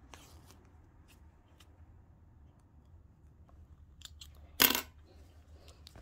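Hands handling fabric: faint rustles and small clicks, then one sharp, loud rustle about four and a half seconds in.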